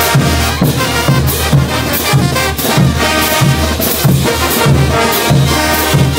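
Large brass band playing a morenada live: trumpets, baritone horns and sousaphones carry the tune over bass drum beats, with cymbals crashing about twice a second.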